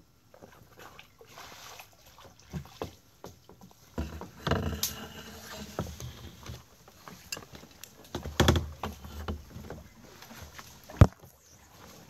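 Kayak paddling in calm water: paddle strokes splashing and dripping, with scattered light knocks. Two louder splashy strokes come a few seconds apart, and one sharp knock near the end is the loudest sound.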